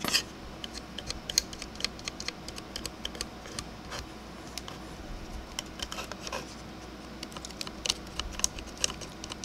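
A small tool scraping and tapping at the paint of a plastic miniature, a run of irregular light clicks and scratches, louder near the start: red paint being chipped off over a hairspray layer.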